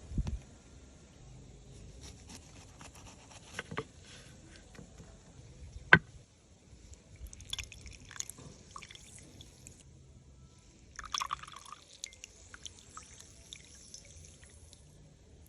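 Water dripping and trickling in small amounts, with scattered light clicks and handling knocks and one sharp click about six seconds in.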